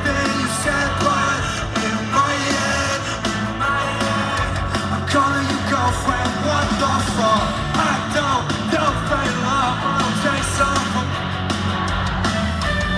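Live pop-punk band playing at full volume: electric guitars, bass and drums under a sung lead vocal, with yelling voices mixed in.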